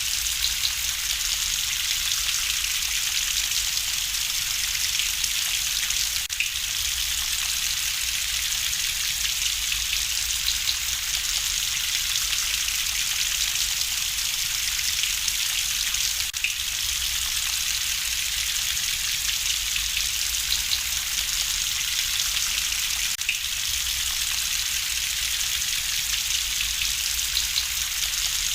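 Steady rain hiss, with a few faint sharp pops now and then.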